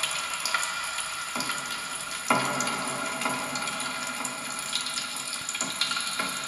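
Experimental sound piece made with kitchen utensils and popping candy: a steady watery hiss with a faint high tone and scattered crackles, and a fuller swell that comes in suddenly about two seconds in.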